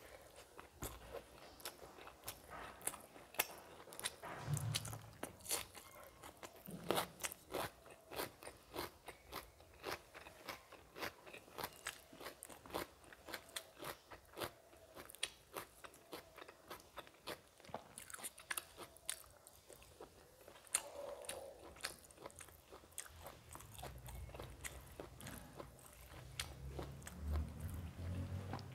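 Close-miked chewing of a mouthful of rice and curry eaten by hand, with many small sharp mouth clicks.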